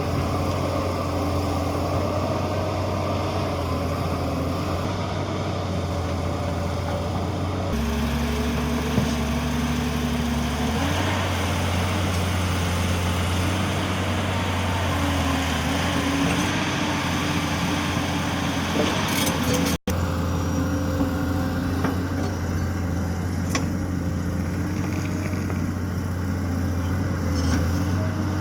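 Tata Hitachi 200EX excavator's diesel engine running steadily under work, its note dropping lower for a few seconds about a third of the way in, with a short break near the middle.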